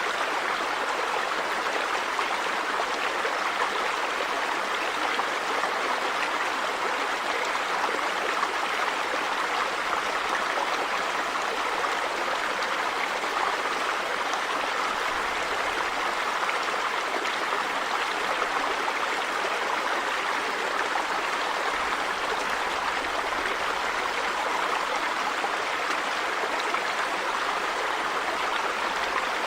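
River water running over rocks: a steady, even rush with no changes.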